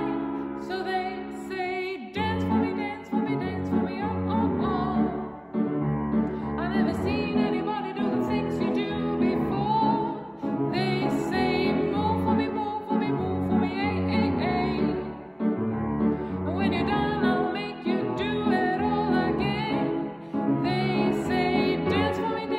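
A woman singing in a classical, operatic style with grand piano accompaniment.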